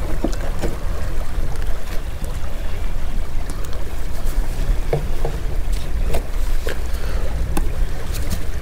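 Wind buffeting the microphone in a steady low rumble, with a few light knocks and scrapes of a wooden plank being pushed into place against the boat's wooden frame.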